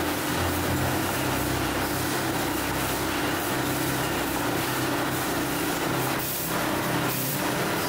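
Steady machine noise of an automated ice-cream packing line: a continuous low hum under a broad hiss, with a few short regular pulses near the end.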